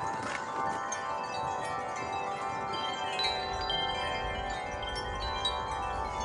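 Several wind chimes ringing continuously in the wind. Many overlapping tones sound together, with fresh strikes throughout. A low wind rumble comes in about halfway through.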